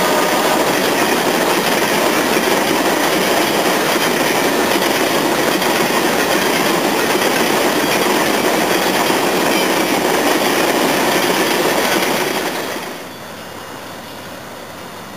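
CSX freight train's hopper cars rolling past close by, a steady rumble and clatter of steel wheels on the rails. About thirteen seconds in the sound drops off sharply as the last car goes by and the train moves away.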